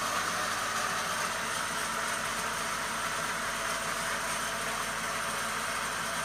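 Steady mechanical hum, even and unchanging, with no distinct events.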